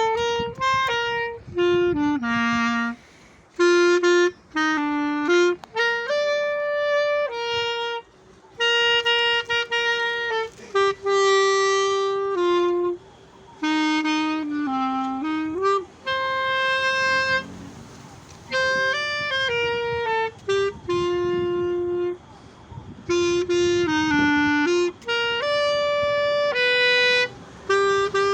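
Solo clarinet, unaccompanied, playing a slow melody of held notes in phrases separated by short breaks.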